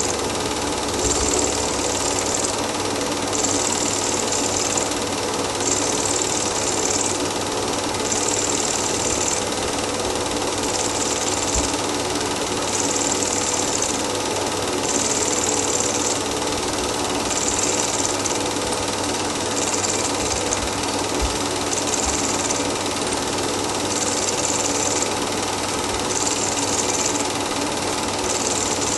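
Cine film projector running: a steady mechanical whirr and clatter, with a higher hiss that swells about every two seconds.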